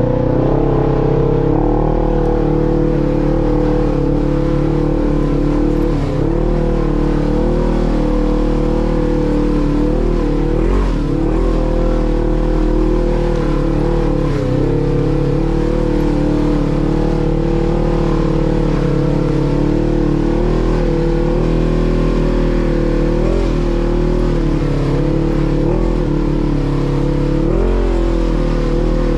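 Off-road vehicle's engine running steadily and loudly, its pitch briefly dipping and recovering a few times as the throttle changes.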